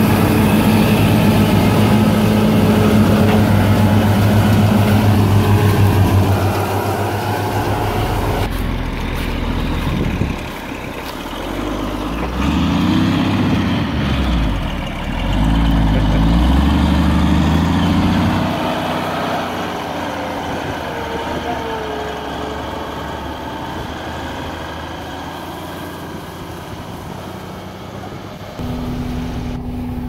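New Holland TR88 combine's diesel engine running steadily at close range. After a cut, a Peterbilt 362 cab-over truck's diesel engine runs with its pitch rising and falling for several seconds. Near the end, a steady engine hum is heard from inside the combine cab.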